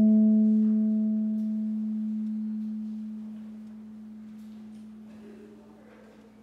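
One low note on a string instrument rings out and fades slowly over about six seconds, a clean, almost pure tone with faint overtones.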